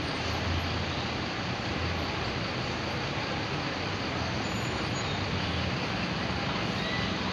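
Steady traffic noise of buses and vehicles running at a bus terminal, with a low engine rumble that swells every second or two.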